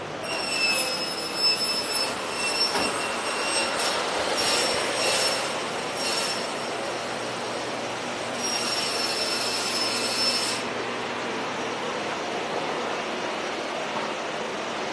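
High-pitched whine of woodworking machinery in a cabinet laminate shop, over a steady hiss of shop noise. The whine runs for about two seconds at the start, comes back in short spurts around four to six seconds in, and again for about two seconds before stopping sharply near the middle.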